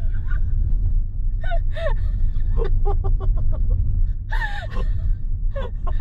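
A person laughing in quick repeated bursts with gasping breaths, over the steady low rumble of a moving car's engine and road noise inside the cabin.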